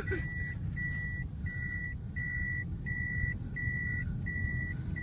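A car's reversing beeper sounding in the cabin while the car drives in reverse: one steady high beep, each about half a second long, repeating about three times every two seconds, over the low rumble of engine and road.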